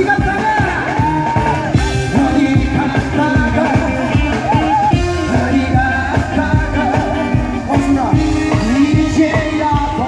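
A man singing a song live into a handheld microphone, amplified, over accompaniment music with a steady beat.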